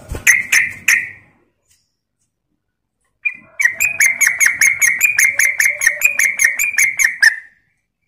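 Caged yellow-vented bulbul (trucuk). A brief flutter and a few notes come at the start. About three seconds in it breaks into a fast, even chattering run of about five notes a second, which lasts some four seconds: the rapid 'ropel' song.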